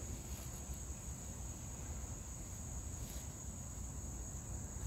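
Steady high-pitched chorus of insects, with a low background rumble underneath.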